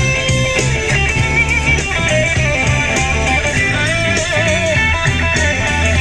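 Rock music led by electric guitar over bass and a steady drum beat, with wavering, bent notes about four seconds in.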